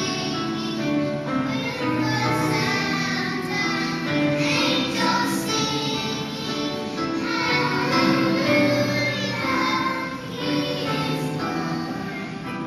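A choir of young children singing a Christmas song together, with instrumental accompaniment holding steady notes beneath the voices.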